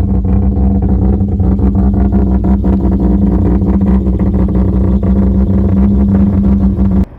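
Mazda 13B-REW twin-turbo rotary engine in an RX-8, idling steadily on its own after being cleared of flooding with starter fluid. The sound cuts off abruptly near the end.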